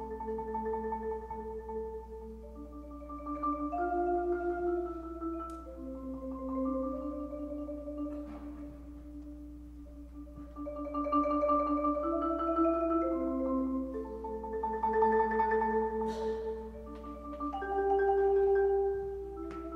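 Solo concert marimba played with four mallets: held, rolled chords that move from one to the next, swelling louder and fading back several times.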